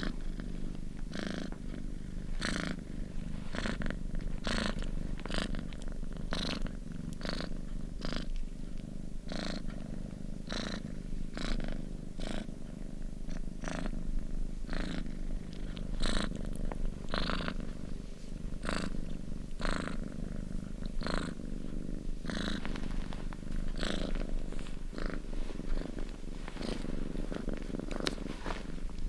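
House cat purring steadily, with short airy pulses recurring every half second to a second.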